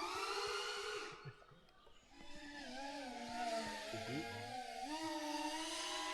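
FPV racing quadcopter's brushless motors whining, the pitch shifting with throttle. The whine drops away about a second in, when the throttle is cut, then spools back up and keeps rising and falling.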